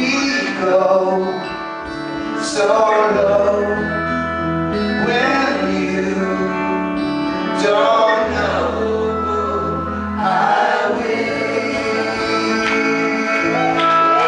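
Several men singing a song together in close harmony over acoustic guitar, electric guitar and keyboard, played live. Deep held low notes come in twice, a few seconds in and again past the middle.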